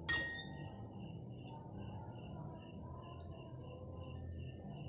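Crickets trilling steadily, with short chirps about three a second. Just after the start, a single sharp clink with a short ring, like a metal spoon striking a ceramic bowl.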